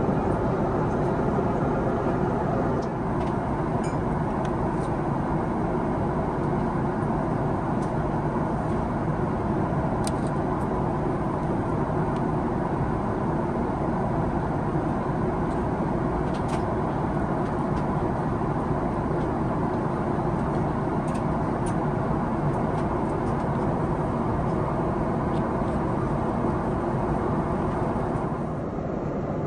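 Steady airliner cabin noise in cruise flight: a constant rumble of engines and rushing air, with a few faint light clicks now and then.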